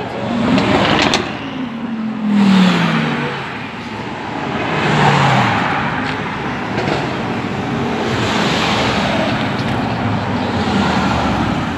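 Cars driving past one after another, each engine note and tyre noise swelling and then falling in pitch as it goes by.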